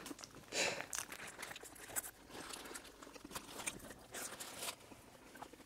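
A man chewing a large mouthful of hamburger: faint, irregular chewing clicks and smacks, with soft rustles of the paper burger wrapper.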